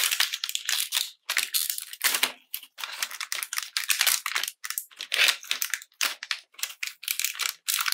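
A clear plastic blister pack and its cardboard backing being crinkled and torn open by hand, in quick irregular bursts of crackling with short pauses.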